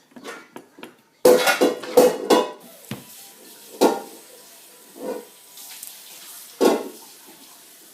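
Hard clicking and clattering of fidget spinners being handled, with a burst of rattling about a second in followed by several separate knocks.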